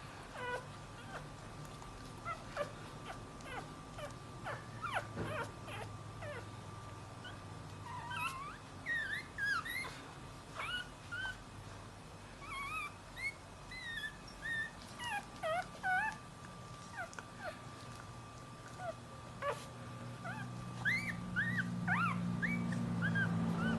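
Chihuahua puppy whimpering and crying: many short, high-pitched whines that slide up and down, coming in clusters over a faint steady tone. A low hum grows in over the last few seconds.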